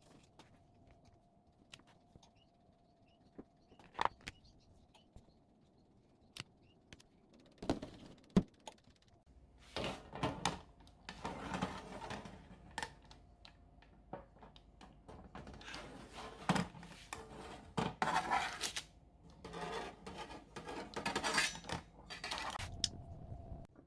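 Kitchen work: utensils and dishes clinking and knocking a few times, then several stretches of hissing noise a second or two long in the second half, over a faint low hum.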